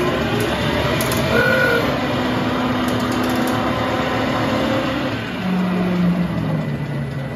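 Boxford Model A/AUD metal lathe running under its built-in variable-frequency drive, the spindle and chuck turning fast with a steady mechanical whir of headstock gearing.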